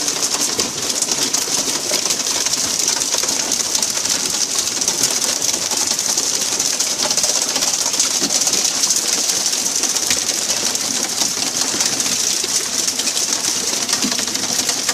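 Steady rushing hiss of sea water spraying and churning along a fishing boat's hull.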